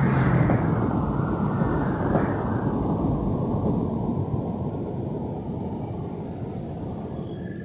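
A vehicle's rumble that slowly fades away.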